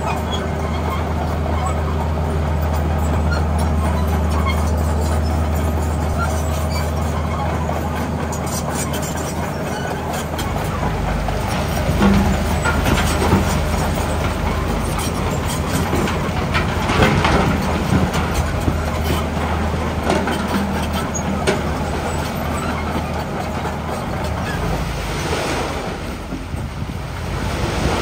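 Heavy diesel engine of road-building machinery running with a steady low drone. From about ten seconds in the sound turns rougher, with rattling and several louder knocks.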